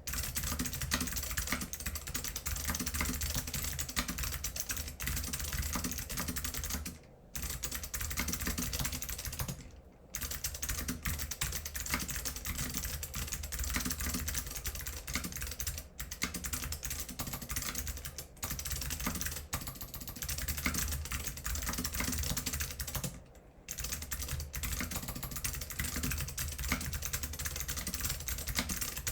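Continuous fast typing on a mechanical keyboard with Alps SKCM Blue clicky switches, unlubed and unmodded, on a stainless steel plate with PBT keycaps: a dense stream of sharp clicks, with short pauses a few times.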